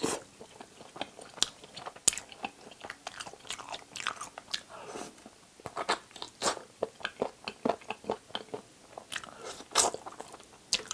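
Eating sounds of braised spicy chicken: irregular wet mouth smacks, clicks and bites as meat is chewed and nibbled off a small bone held in the fingers.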